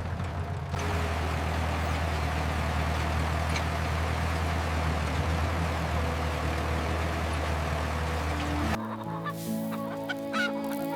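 A tractor engine running with a steady low drone. Near the end it gives way to chickens clucking over light music.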